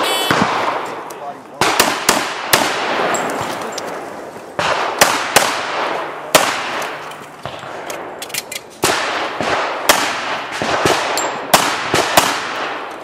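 A string of pistol shots during a timed competition stage: about a dozen sharp reports, fired singly and in quick pairs with pauses of one to two seconds between groups, each followed by a short echo.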